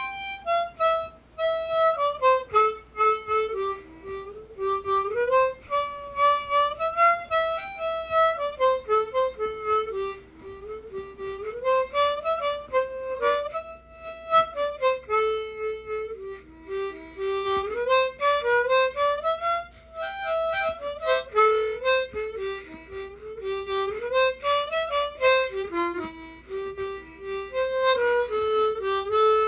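An old, oversized diatonic harmonica with extra low notes playing a jig melody, starting suddenly with the first note.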